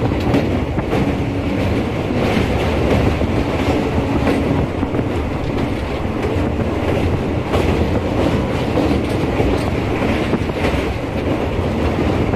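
Indian express train (11904 Virangana Laxmibai Express) running at speed, heard from inside a coach: a steady rumble of wheels on rails with clickety-clack as it crosses the Chambal River bridge.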